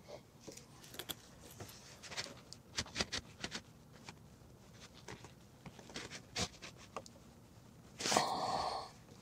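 Zip ties being fastened around a pole to hold a scraper: scattered small clicks and rattles, then a ratcheting zip lasting about a second near the end as a tie is pulled tight.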